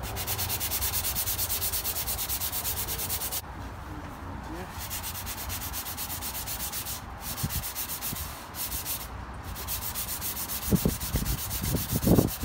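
220-grit sandpaper on a hand sanding block, rubbed back and forth over a car fender's painted steel in quick even strokes with a few short pauses, feathering out a small rust repair spot. A few louder knocks come near the end.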